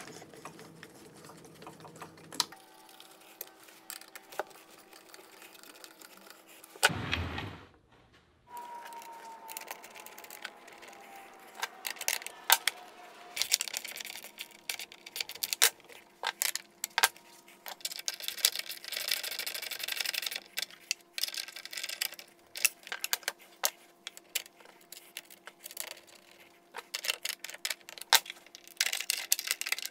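Irregular metallic clicks and clinks of hand tools and hardware as battery cable lugs and nuts are fastened onto bus bar terminal studs, with rattling stretches in between. A single louder thump comes about seven seconds in, over a faint steady hum.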